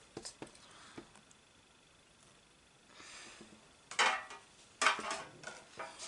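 Pokémon trading cards handled in the hands: a few light clicks, then two louder scrapes of cards sliding against one another about four and five seconds in.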